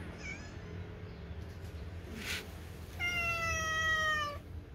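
A cat meowing: a short, faint mew near the start, then one long, high meow about three seconds in that falls slightly in pitch.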